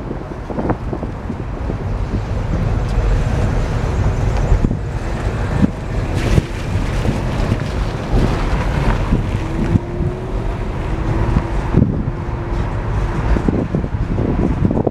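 Freight train cars rolling over an elevated railway bridge: a steady low rumble of wheels on rail with occasional sharp clanks, and wind buffeting the microphone.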